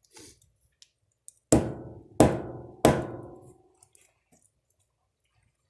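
Three sharp cracks, about two-thirds of a second apart, each with a short ringing tail, as hard, fully dried carrot pieces are snapped by hand like brittle twigs.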